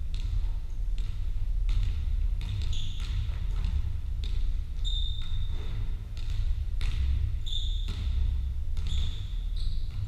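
Several basketballs bouncing at an irregular beat on a wooden sports-hall floor as players dribble, in a large hall. Short high squeaks of shoes on the court come in now and then.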